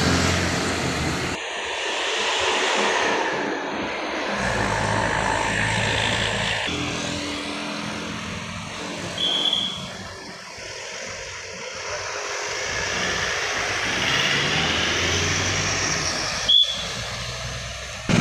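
Road traffic: motorcycle and car engines and tyre noise, swelling and fading as vehicles pass. Two short high whistle blasts come about nine seconds in and near the end.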